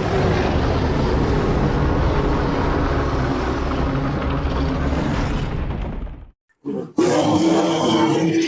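Custom kaiju roar sound effect layered from movie monster roars and animal growls: one long, deep roar of about six seconds that cuts off sharply, then after a short break a second roar with a steady droning pitch.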